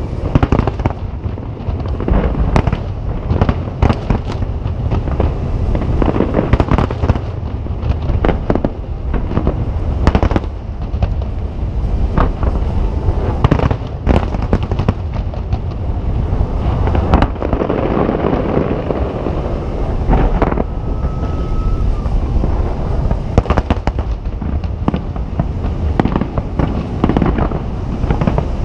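Aerial fireworks shells bursting in rapid succession: a dense run of booms and crackle with hardly a gap between them.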